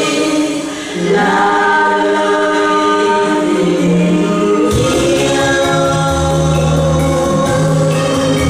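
A group of women singing a Vietnamese song in harmony with instrumental accompaniment, holding long notes. About halfway through, a bass line and drums come in under the voices.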